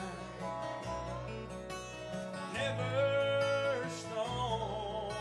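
Country-style background music with acoustic guitar, a bass line and a sung melody.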